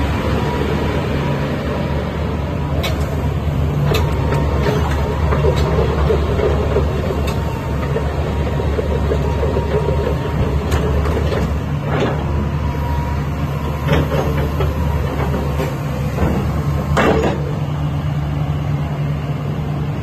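Hitachi ZX350 tracked excavator's diesel engine running steadily, with scattered sharp metallic knocks, the loudest about two-thirds of the way through and near the end.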